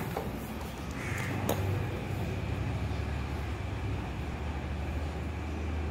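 A steady low hum throughout, with two sharp taps from a small cardboard parcel being handled, one at the start and one about a second and a half later.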